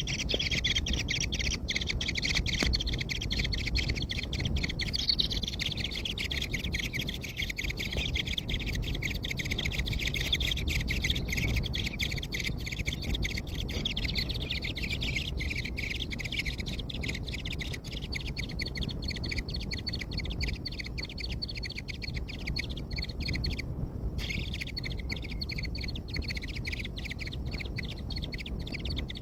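Birds chirping in a steady, dense chatter of high, quick calls, over a low background rumble.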